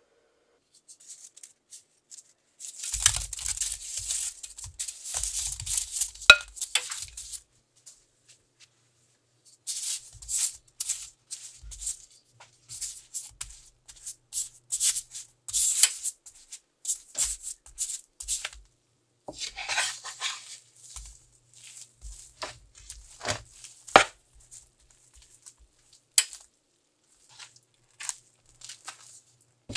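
Wooden spatula stirring marshmallows around a non-stick frying pan as they begin to melt: irregular bursts of scraping and rustling a few seconds long, with short pauses between and a few sharp clicks of the spatula against the pan.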